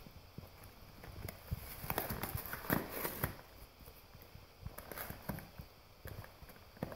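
Golden retriever chewing and ripping apart a thin cardboard box: irregular crackles, rips and crunches of the card under its teeth and paws, busiest and loudest about two to three seconds in.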